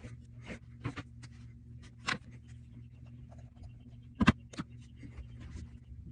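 Scattered light clicks and taps of small repair tools and parts being handled on an iPhone XR during a display repair, with a sharper double click about four seconds in, over a steady low hum.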